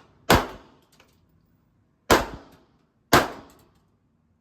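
Three handgun shots at a shooting range, each a sharp crack with a short echoing tail: about a third of a second in, near the two-second mark, and one second later.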